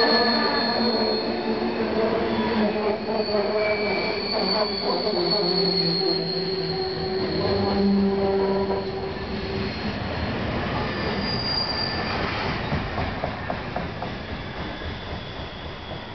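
Freight cars rolling past, their wheels squealing in several steady high tones over the rumble and clatter of wheels on rail. The sound fades over the last few seconds as the last boxcar moves away.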